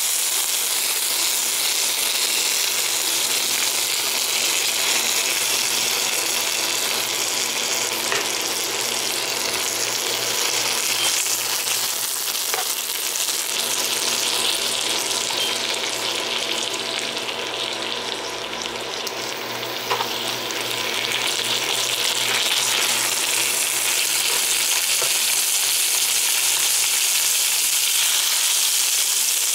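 Pork chops sizzling in melted butter in a nonstick frying pan while being butter-basted, with a few light clinks of a metal spoon against the pan. The sizzle eases a little for a few seconds past the middle, then picks back up.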